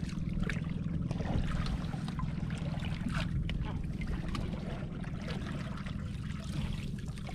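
Water splashing and dripping as a crab lift net is hauled up by hand beside a boat, over a steady low rumble.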